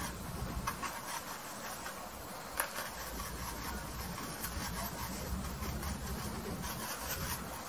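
Faint scratchy rubbing of a paintbrush dabbing and scrubbing oil paint onto canvas, over a low steady hum, with one slightly louder tap about two and a half seconds in.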